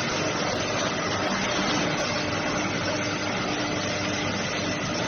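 Four-spindle wood CNC router running: steady, dense machine noise with a faint steady whine.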